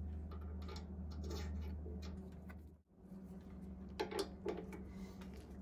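A drill press chuck being tightened on an end mill with a chuck key: a few sharp metal clicks and rattles about four seconds in, over a low steady hum.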